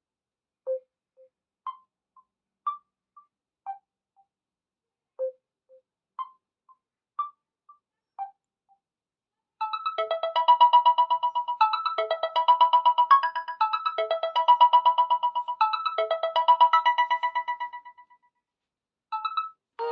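Built-in ringtones of a Samsung Galaxy Tab A7 Lite. First comes a sparse electronic melody of short single notes spaced about half a second to a second apart, for about eight seconds. After a short pause, a busier tinkling ringtone of rapid repeated high notes plays for about eight seconds, and another tone starts just before the end.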